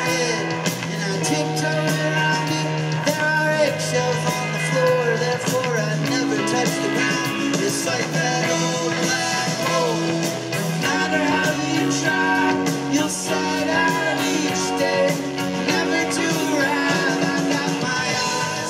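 Rock band playing live: electric guitars, bass and keyboard over a steady beat, with a man singing lead.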